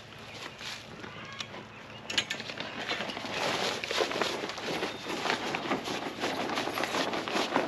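Fabric door of a portable tarp shelter being lifted and rolled up, the heavy fabric rustling and crinkling with small scrapes. The rustling grows louder and busier about two seconds in.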